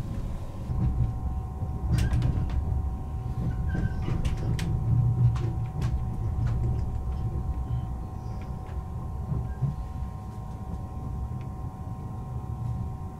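Moving electric passenger train heard from inside the car: a steady low rumble of the running train with a faint steady high whine, and scattered sharp clicks and knocks, several of them between about two and six seconds in. The rumble eases a little after about eight seconds.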